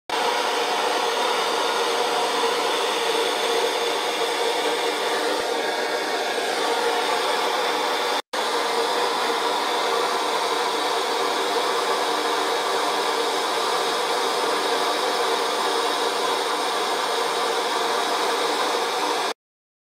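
Butane kitchen torch flame burning with a steady hiss. It cuts out for an instant about eight seconds in and stops abruptly near the end.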